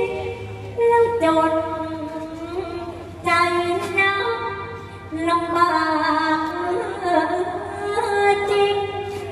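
A woman singing a Thai sepha recitation in long, drawn-out, wavering notes, one phrase after another.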